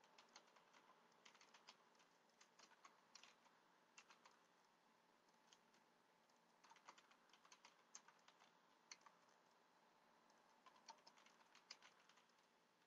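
Faint computer keyboard typing: quick key clicks in short runs with pauses between them.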